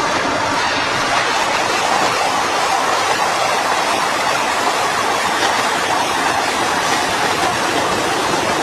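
Steady, even noise of factory machinery running, with no distinct knocks or tones.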